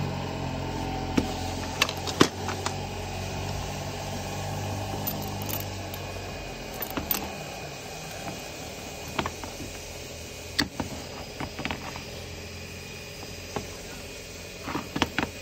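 Hand tools clicking and knocking against a PCC streetcar brush holder as it is pried and gripped on a steel workbench: scattered sharp metallic clicks, the loudest about two seconds in, with small clusters near the middle and near the end. Under them a low steady motor hum fades out about six seconds in.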